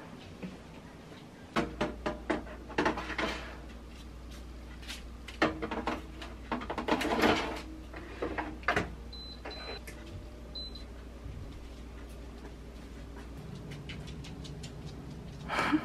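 Metal baking trays clattering and knocking as they go into a countertop air fryer oven and its door is handled, then three short high beeps from the oven's control panel as it is set to bake. A low steady hum runs underneath, and a brief louder noise comes near the end.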